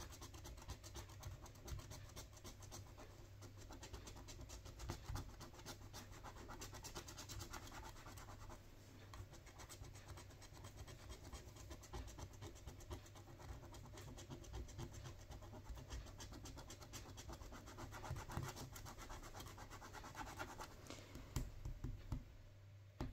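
Faint, rapid scratching of the latex coating off a paper lottery scratch card, stroke after stroke with short breaks, a few sharper scrapes near the end.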